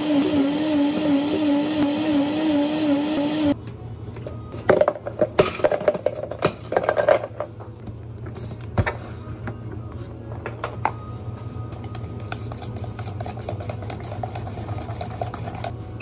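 Countertop blender motor running at high speed with a steady, slightly wavering whine, cutting off suddenly a few seconds in. Then come several knocks and clatters as ice and ingredients go into the plastic blender jar, followed by quieter handling sounds.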